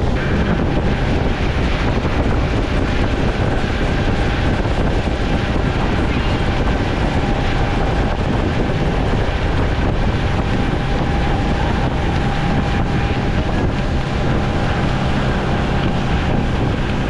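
Tour boat's outboard engine running steadily at speed, with water rushing and spraying off the hull and heavy wind noise on the microphone. A faint steady whine sits over the noise.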